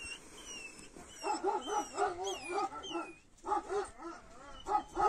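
Kangal shepherd dogs barking in a fast run of short barks, about four a second, starting about a second in, with a brief pause before they go on.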